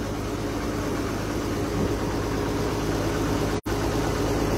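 Passenger boat's engine running steadily with a low hum, heard on board. The sound cuts out for a split second about three and a half seconds in.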